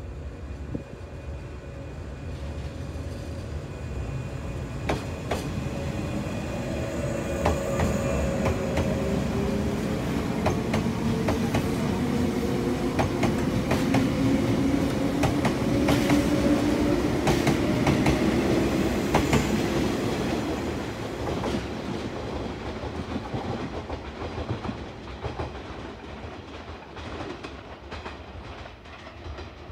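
485-series electric multiple unit pulling out and passing: a motor whine with pitch that shifts as it gathers speed over a running rumble, and wheels clicking over rail joints. It grows louder as the train goes by, then fades as it recedes.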